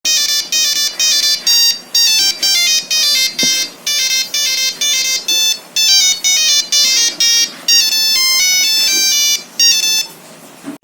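Nokia 3310 monophonic ringtone playing a quick melody of short electronic beeps, one note at a time, stopping about ten seconds in.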